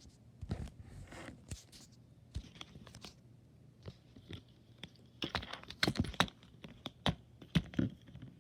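Irregular clicks, taps and crinkly rustles of small objects being handled close to the microphone, busiest in the second half.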